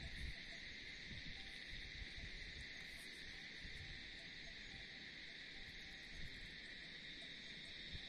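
Steady insect chorus, a faint continuous high-pitched drone with no breaks, over a low rumble.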